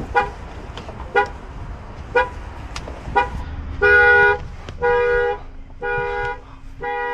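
A car alarm going off, sounding the car's horn about once a second: short toots at first, then from about four seconds in longer two-tone honks, each roughly half a second long.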